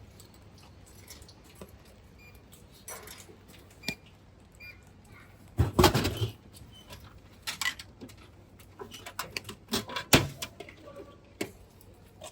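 Handling sounds at a drinks vending machine: small clicks and jingles, a heavy thud about six seconds in as a drink drops into the tray, and a sharp knock about ten seconds in.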